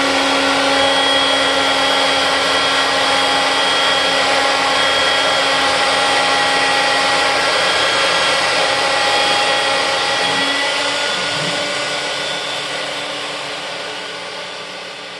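Shopbot PRT CNC router spindle running and cutting a groove in a plywood sheet: a steady whine over a rushing noise, easing off somewhat over the last few seconds.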